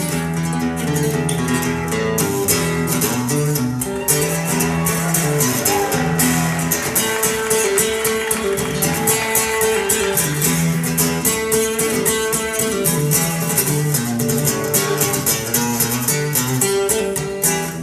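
Instrumental acoustic guitar passage, fast picked and strummed notes over a steady low bass line, played back through Dali Spektor 2 loudspeakers. The playing thins out near the end.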